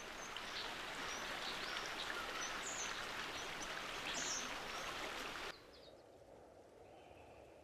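Outdoor ambience: a steady rushing noise with a few scattered bird chirps. About five and a half seconds in it cuts off suddenly to a much quieter background.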